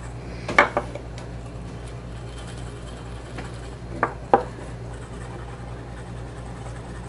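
Light scrubbing of a briar pipe's shank beside its metal band with a damp white pad. Faint rubbing is broken by a few sharp clicks and knocks as the pad and pipe are handled: the loudest comes about half a second in, with another just after it and two more around four seconds in. A steady low hum sits under it all.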